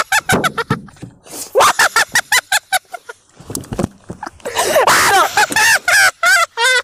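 Voices shouting in a string of short, loud cries, with brief gaps between them.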